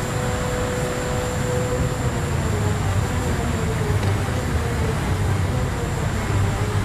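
Aircraft engine running at high power: a loud, steady roar of engine blast with a thin high tone held above it.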